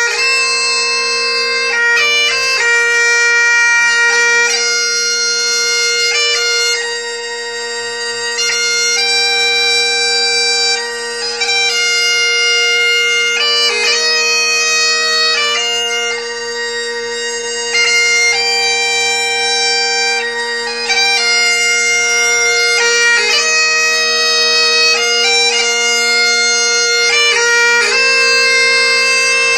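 Bagpipe music: a slow melody of held notes over steady, unbroken drones.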